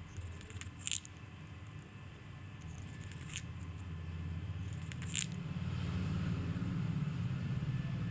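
Three short, high hissing breaths about two seconds apart, the snore-like breathing of a bird, over a low rumble that swells in the second half.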